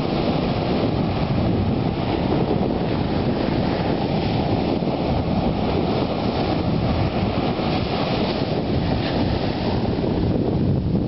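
Sea surf breaking and washing up a sandy beach, with wind buffeting the microphone throughout.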